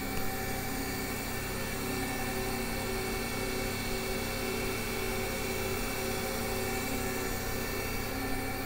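Mazak VTC-300C vertical machining center with its spindle running: a steady machine whir with several held tones over an even hiss.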